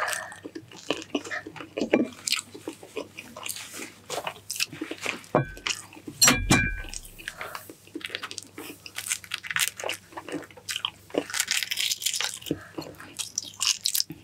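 Close-miked eating: biting, chewing and crunching with wet mouth smacks. Two sharp clinks that ring briefly come about halfway through.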